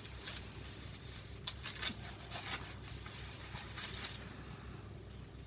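Small inner package being opened by hand: wrapping rustling and crinkling, with a short, sharp rip of the wrapping about a second and a half in.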